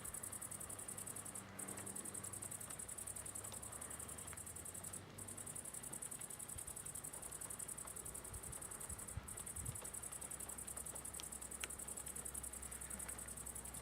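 Night insects chirring in a steady high-pitched drone that breaks off briefly now and then, with a faint low rumble in the second half.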